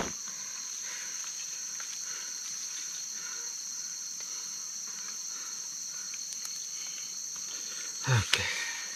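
Steady chorus of rainforest insects, a constant high-pitched shrill. Near the end a brief louder, lower sound cuts in.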